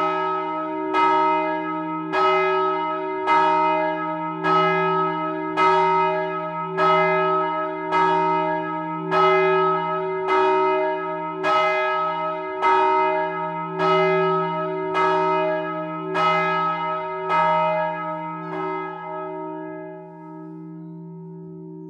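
A large bronze church bell swinging and struck by its clapper about once every 1.2 seconds. The strokes weaken as the swing dies away and stop a few seconds before the end, leaving the bell's hum ringing on and fading as it comes to rest.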